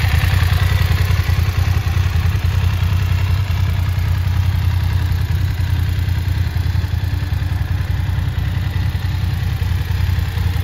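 BMW F 850 GS motorcycle's 853 cc parallel-twin engine idling steadily, with a deep, even exhaust note and no revving.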